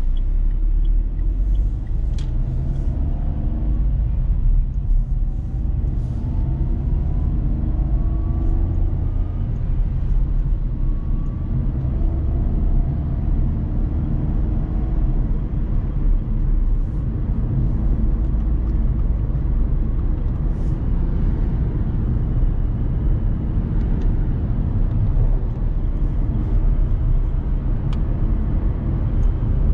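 Dacia Sandero Stepway's 1.5 dCi four-cylinder turbodiesel and tyre noise heard from inside the cabin while driving: a steady low rumble. The engine note rises a few times in the first third.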